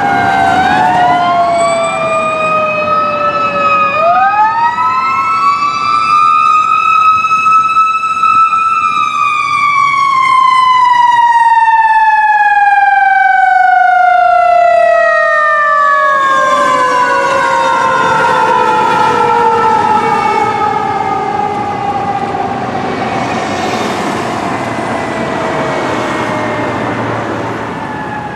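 Fire engine siren wailing. Early on two wails overlap, one falling and one rising. About four seconds in the siren winds up to a high peak, then falls slowly and steadily in pitch over the next twenty seconds.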